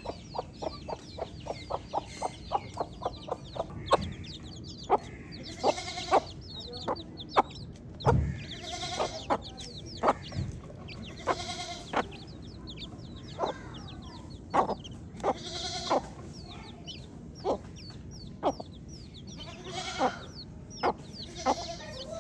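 A brood of baby chicks peeping continuously: many quick, high chirps that fall in pitch. Short sharp clicks run through them, in a fast, even series over the first few seconds and scattered after that.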